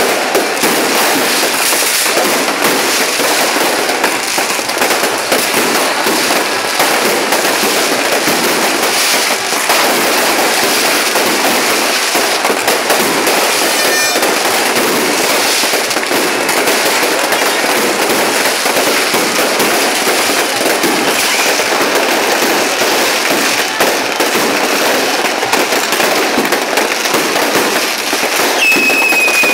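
Many fireworks and firecrackers going off at once in dense, continuous crackling and popping, with a high whistle near the end.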